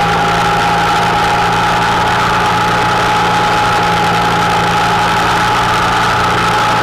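Honda Interceptor 700's V4 engine running at a steady cruising speed under way, with a constant whine over wind and road noise.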